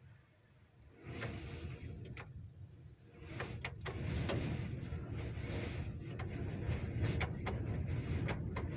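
Gusting blizzard wind with wet snow ticking irregularly against a window pane. The wind rises about a second in and grows stronger about three seconds in.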